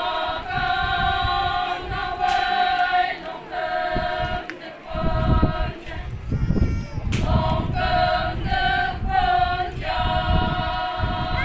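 A group of Konyak Naga women singing a traditional chant in unison, in long high held notes that break off and start again every second or so. Low rumbling noise comes up under the singing around the middle.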